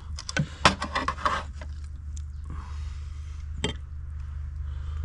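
Spoon scraping and knocking against a cooking pot as stew is dished out: a quick run of scrapes and clicks in the first second and a half, then a single sharp knock later on.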